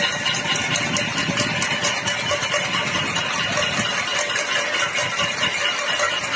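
Cacerolazo: many pots and pans being banged at once from many homes in protest, merging into a dense, steady metallic clatter.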